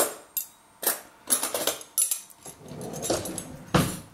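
Cutlery clinking and scraping against a dish of food in a series of short, sharp knocks and scrapes.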